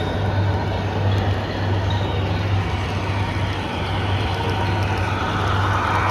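A vehicle engine running steadily with a low hum, and a rushing noise building near the end.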